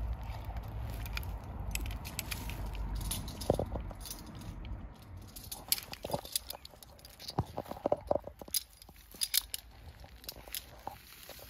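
Scattered sharp clicks and short metallic rattles of rope-access hardware being handled: a Petzl Rescucender rope clamp and carabiners on a rope. A low rumble underlies the first few seconds.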